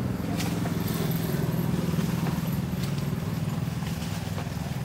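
A small engine running with a rapid, even putter, growing a little louder about one to two seconds in and then easing off slightly.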